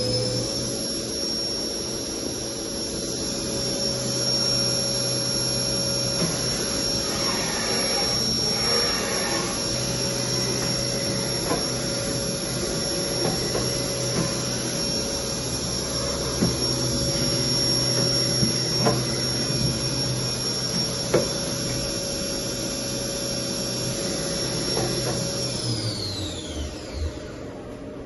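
Haas VF-0 vertical machining centre's spindle running at a steady speed with a high, even whine, then spinning down, its whine falling in pitch and fading about 26 seconds in.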